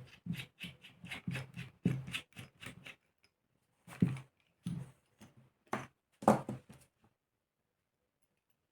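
Tools and small engine parts being handled on a table during disassembly: a quick run of short clicks and clatters, a few more knocks, then stopping about seven seconds in.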